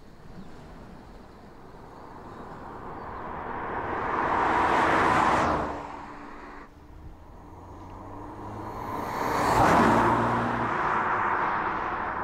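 BMW 2 Series Convertible driving past twice, each pass a swelling rush of engine and tyre noise. The first is cut off sharply about six seconds in; the second peaks near ten seconds and trails off into a low, steady engine hum.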